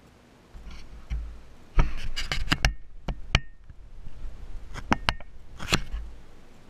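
Handling noise on a watchmaker's bench: a string of sharp clicks and knocks, a few with a short metallic ping, between dull low thumps near the start and near the end.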